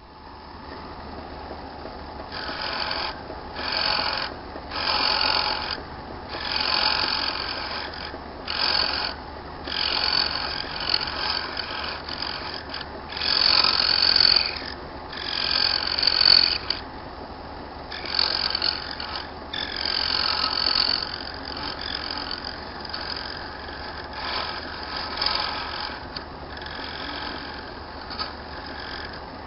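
Bone being scraped by a hand-held cutting tool as it turns on a small lathe, in repeated bursts of about a second each as the tool is pressed on and lifted off. The lathe's motor hums steadily underneath.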